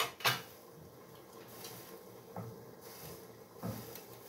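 A metal spoon knocks sharply once against cookware, then taps faintly twice as food is dished out.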